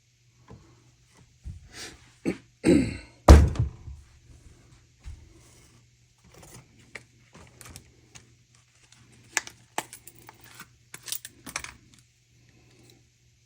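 Knocks, clicks and scrapes of vintage folding knives being handled, opened and set down, with a cluster of heavy thuds about three seconds in and lighter clicks later on.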